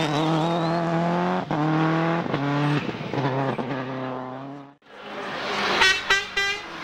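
A World Rally Car engine revving hard through quick gear changes: its pitch climbs and drops several times. The sound cuts away about four and a half seconds in, then another car is heard coming on, with a few short, sharp high-pitched squeals.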